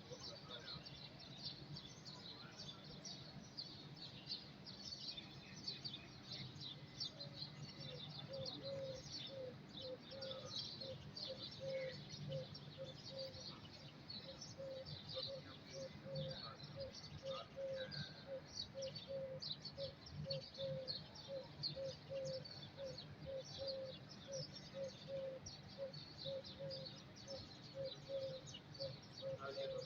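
Many small birds chirping, with a short low note repeating evenly about one and a half times a second from about eight seconds in.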